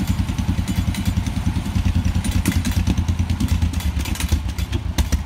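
An older John Deere farm tractor's engine running steadily at idle, a loud, rapid, even putter with some light mechanical clatter.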